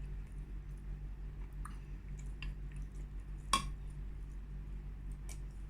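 Quiet eating at a soup bowl: soft mouth sounds and small spoon clicks, with one sharper spoon-on-bowl clink about three and a half seconds in, over a steady low hum.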